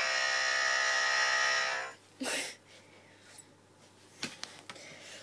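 Played-back snoring sound effect: one loud, buzzy rasp about two seconds long, then a short breathy burst, followed by a few faint clicks.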